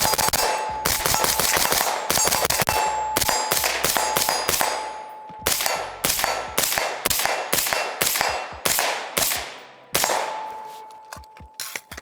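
Suppressed PSA Sabre 5.56 AR-15 with a Dead Air Sierra5 suppressor firing: a quick string of shots over the first few seconds, then steady single shots about two a second, thinning out near the end. A steady metallic ring carries under the shots. The rifle is running on an adjustable carrier at its full suppressed setting with an H2 buffer, and is still overgassed.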